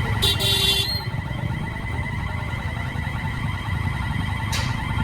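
Train running past with a steady low rumble under an evenly warbling, siren-like tone, and a brief shrill blast about a quarter-second in.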